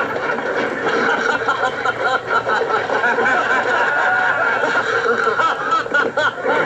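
A crowd laughing and chattering, many voices overlapping without a break.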